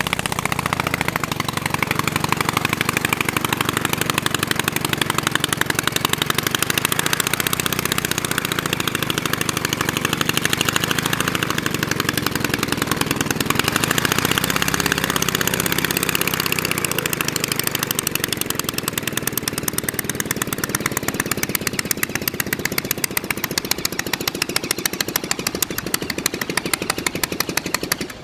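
Lincoln Sport's two-cylinder Bristol Cherub aero engine running at low power on the ground, its rapid firing beats clearly heard, the pitch rising and falling slightly a few times as the throttle shifts. It gets a little quieter over the last several seconds.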